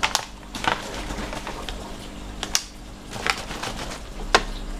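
Thin plastic bottle being handled, giving about five sharp clicks and crackles spread unevenly, over the steady hum of the running aquarium pumps.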